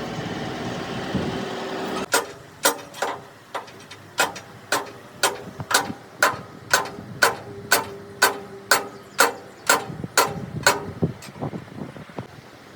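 Hammer blows on steel, about two a second, each strike ringing briefly, starting about two seconds in after a stretch of steady mechanical noise.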